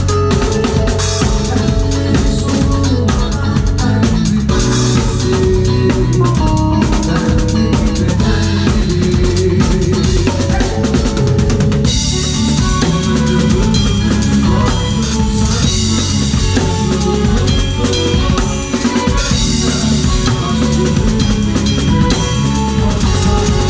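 A rock band playing live, led by a drum kit with bass drum and snare keeping a steady beat under electric guitar and keyboard. About halfway through, the cymbals come in and the sound gets brighter.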